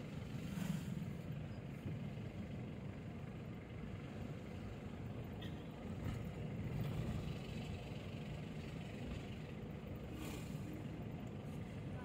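A car driving along a road: a steady low rumble of engine and tyres.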